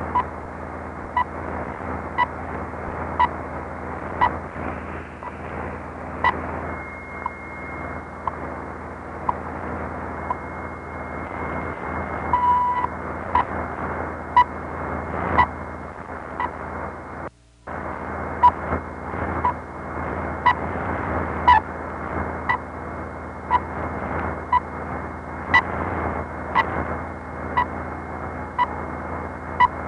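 Shortwave radio tuned to the time-signal station WWV: a short tick every second through steady static hiss. A thin steady whistle sounds for a few seconds about a quarter of the way in, and the signal drops out for a moment just past halfway.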